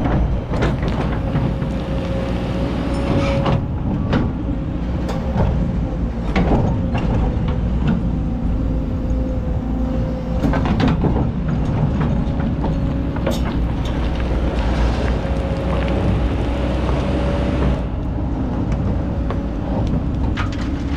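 Kobelco hydraulic excavator working: the diesel engine runs steadily under load with a held hydraulic whine, while the steel bucket scrapes and knocks against hard black sand and stones several times.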